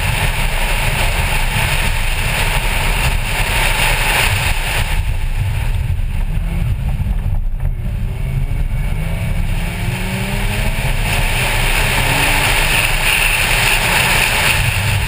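Porsche Cayman's engine running hard on an autocross run, under a heavy rush of wind on an outside-mounted microphone. About halfway through, the engine note climbs in pitch as the car accelerates.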